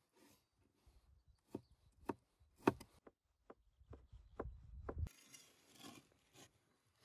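Large chef's knife chopping kiwi on a wooden cutting board: about seven sharp knocks of the blade on the board, roughly half a second apart, the loudest a little before the middle. A softer rustling hiss takes over for the last two seconds.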